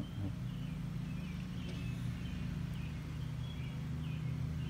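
A steady low motor hum, with birds chirping several times over it.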